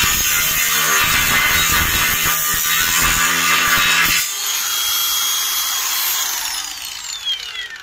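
Makita DGA504Z cordless 125 mm angle grinder cutting through 3 mm cold-rolled steel plate with a cut-off disc, a loud, dense grinding screech. About four seconds in the disc leaves the cut and spins free with a high steady whine. Near the end the motor is switched off and winds down, its pitch falling.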